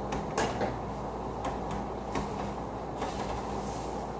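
Light knocks and clinks of kitchen utensils being handled at the stove, a handful of separate strikes, the loudest about half a second in. Under them runs a steady low hum.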